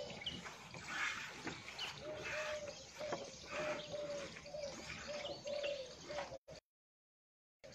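Hand-milking a water buffalo: milk spurts hiss into the pail in a rough rhythm, about one squirt a second. Over it a bird calls in short repeated notes at one steady pitch. The sound cuts out for about a second near the end.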